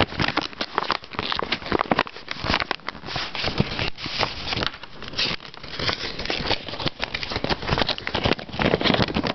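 Paper envelope rustling and crinkling as it is handled and opened, with many small irregular crackles and taps.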